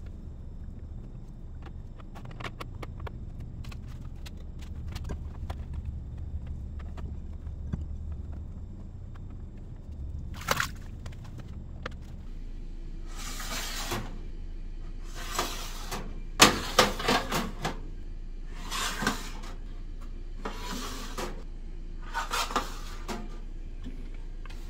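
Metal trays of shredded zucchini being slid one after another into the rack of a Cosori food dehydrator: a run of short scraping slides with light knocks, about six in the second half. Before them, only faint rustling and ticks over a low hum.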